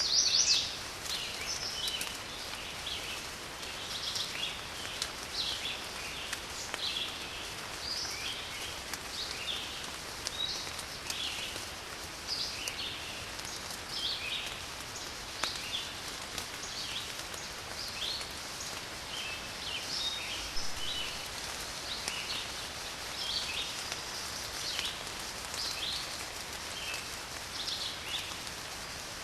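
Steady rain falling while many birds chirp in short, overlapping calls throughout, loudest right at the start.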